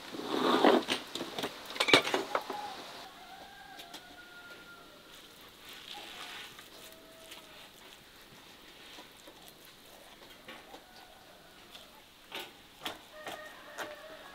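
Hands handling raw red bell peppers and shredded vegetable filling over a metal tray, with rustling and clicks loudest in the first three seconds and again near the end. Short calls of chickens clucking come and go in the background.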